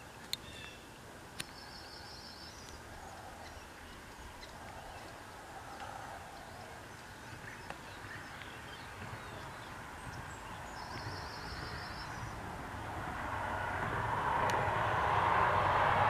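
Outdoor ambience with a couple of sharp ticks in the first second or so and a bird's short, high trill twice. A vehicle's noise rises steadily over the last few seconds, becoming the loudest sound as it approaches.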